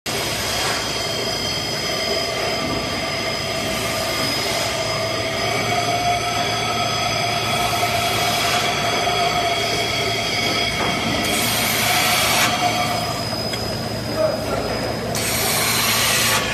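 Beer canning line running: empty cans travel along a conveyor into the rotary filler, a steady mechanical clatter with several high whining tones. Near the end, two bursts of hiss rise over it, each about a second long.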